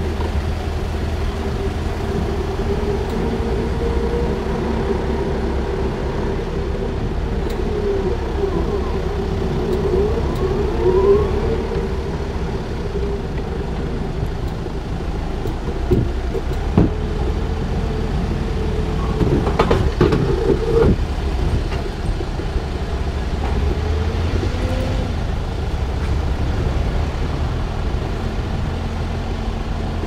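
Small vineyard tractor's engine running steadily as it drives along, with a few sharp knocks and rattles from the machine and its load around the middle.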